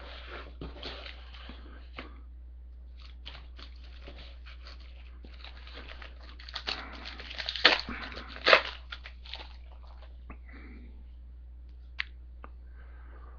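Foil trading-card pack wrappers crinkling and tearing open, with cards handled; the crinkling is busiest and loudest about two-thirds through, with a few sharp crackles. A steady low hum runs underneath.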